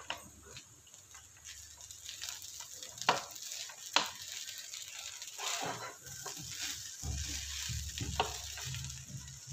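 Wooden spatula stirring and turning cooked biryani rice in a nonstick pan: rustling, scraping strokes through the rice, with a few sharp knocks of the spatula against the pan.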